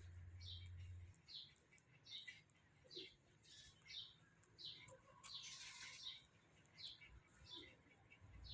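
Baby birds chirping faintly: a steady series of short high chirps, about one or two a second, typical of nestlings begging to be fed. About five seconds in there is a brief noisy burst.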